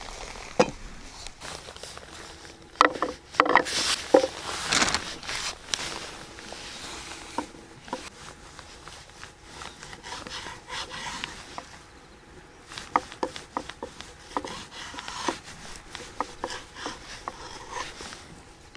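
Knife slicing raw fish fillet into sashimi on a wooden cutting board, the blade tapping the board in a run of light clicks in the second half. Earlier there are a few seconds of louder clattering and knocks.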